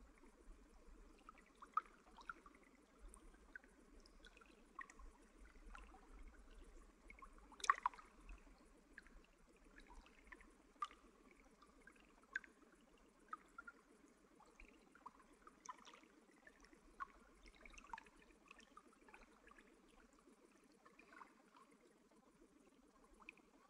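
Faint trickling-water ambience: a soft steady wash with small drips and plinks at irregular intervals, the loudest about eight seconds in.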